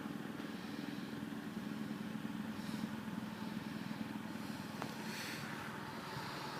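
An engine running steadily at idle, a low even hum with some hiss over it.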